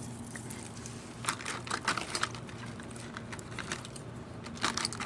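Light plastic clicks and rattles from new wiper blades being handled on their packaging, a few around one to two seconds in and a louder cluster near the end, over a faint steady hum.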